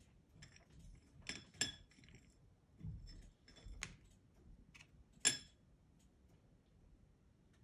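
Wooden pastel pencils clinking against a porcelain plate as they are picked up and set down: several sharp, ringing clinks, the loudest about five seconds in.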